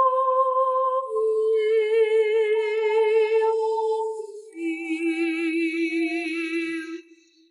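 Soundtrack music: a woman's wordless humming vocal holding three long notes with vibrato, each lower than the last, that stops just before the end.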